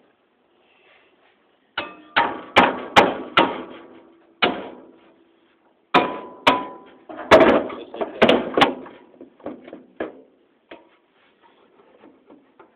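Hammer blows on a threaded part of a ceiling fan motor, knocking it one way and then the other to loosen it. Two runs of about six sharp metallic strikes, each with a short ring, then a few lighter taps.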